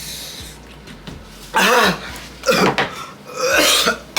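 A person coughing and groaning in three loud outbursts, about a second apart, choking on the burn of an extremely hot chili gummy bear.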